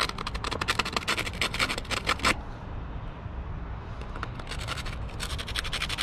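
Spark plug scrubbed back and forth against a sandpaper disc by hand to clean it: fast runs of scratching strokes, stopping a little over two seconds in and starting again about four seconds in.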